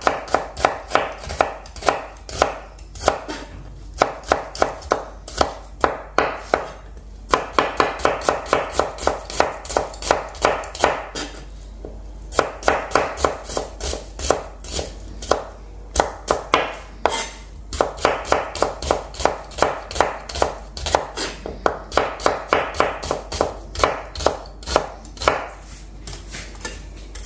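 Chef's knife chopping red onion finely on a plastic cutting board: quick, even strokes in runs of a few seconds with short breaks between them.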